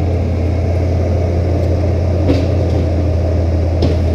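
CAT 304CR mini excavator's diesel engine running steadily, with two sharp knocks, about two seconds in and near the end, as the bucket and hydraulic thumb strike rock while grabbing it.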